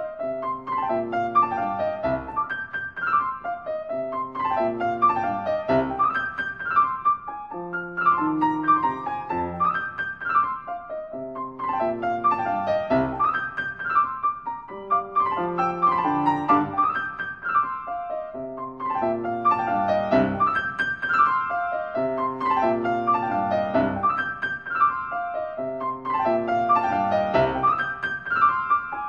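Piano music: a flowing run of notes in a repeating pattern, laid over the video as a soundtrack.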